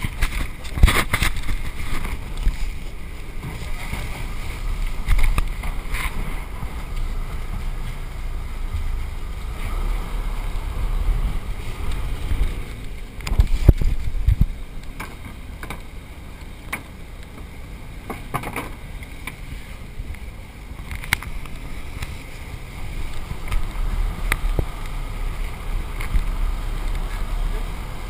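On board a small motor fishing boat under way: a steady low engine rumble with water and wind on the microphone, broken by scattered knocks and thumps on the deck, the loudest cluster about thirteen seconds in. Faint voices come and go.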